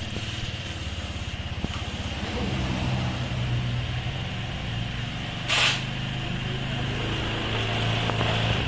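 Small motorcycle engine running steadily, rising a little in speed partway through, with a short hiss about five and a half seconds in.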